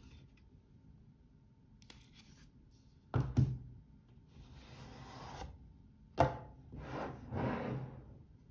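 A cardboard watch box being slid out of its paper sleeve: long rubbing and scraping of cardboard. Two quick knocks of the box on the tabletop come about three seconds in, and one sharper knock comes a little after six seconds.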